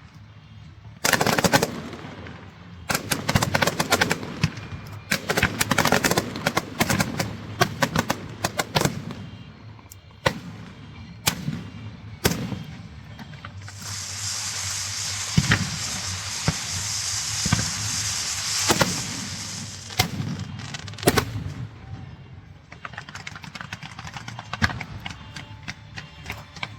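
Strings of firecrackers going off in rapid crackling runs with louder single bangs among them. For several seconds in the middle a steady high hiss joins in.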